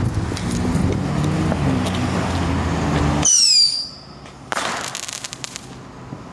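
Consumer ground-launched fireworks going off: about three seconds in, a shrill whistle falling in pitch, then a burst of sharp crackling pops about a second later. Before the whistle, a steady rushing noise.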